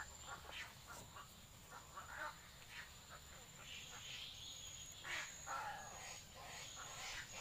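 Faint, irregular croaking calls of egrets in a mangrove nesting colony, over a thin steady high whine.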